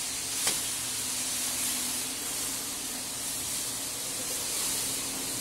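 A steady hiss with a faint low hum under it, and a single click about half a second in.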